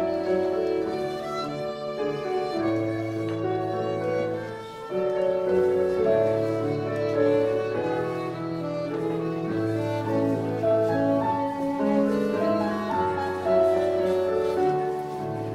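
Instrumental music for English country dancing: a fiddle tune over a bowed low string and piano, with steady held notes and a moving bass line.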